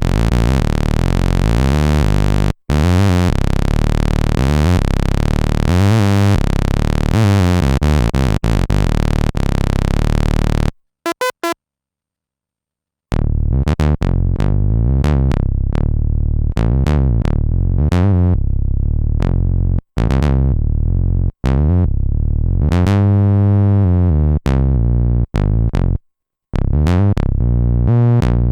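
Arturia MiniBrute 2 analog monophonic synthesizer playing patches. First comes a bright, buzzy sustained sound whose tone sweeps back and forth. After a short pause with a few quick blips, a darker run of separate bass notes follows, briefly turning brighter about two thirds of the way through.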